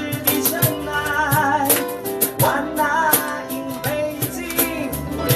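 Ukuleles strumming a steady rhythm while a voice sings a melody with vibrato, in a song by a ukulele group.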